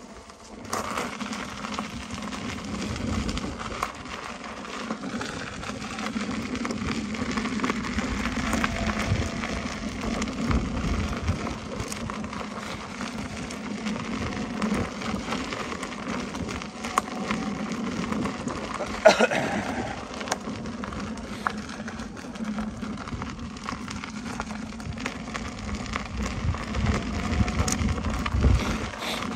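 Electric unicycle riding over a gravel trail: steady crunching hiss of the tyre on gravel under a low hum, with wind buffeting the microphone in gusts. It starts about a second in, and there is one sharp click about 19 seconds in.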